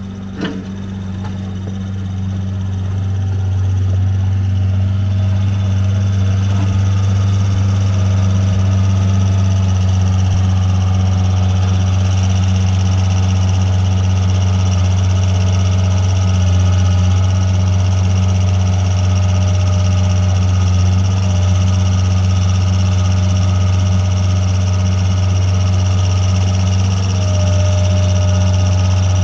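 New Holland L555 Deluxe skid steer's engine running steadily with a deep, even hum, growing louder over the first few seconds and then holding level.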